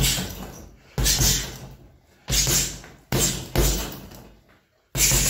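Heavy gloved punches landing one after another, roughly one a second with two in quick succession midway, each a sharp thud that dies away over most of a second.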